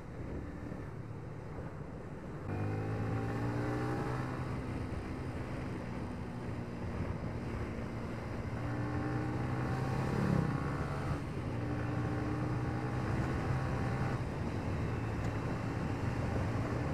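2018 Yamaha Vixion R 155 VVA's single-cylinder engine pulling under acceleration while riding. It gets louder about two and a half seconds in, then its pitch climbs in several stretches, each broken by a short drop as it shifts up a gear.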